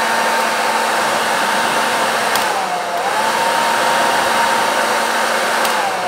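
Philips BHD006 EssentialCare 1600-watt travel hair dryer running on its maximum speed setting: a steady rush of air with a motor whine that dips briefly midway and falls near the end.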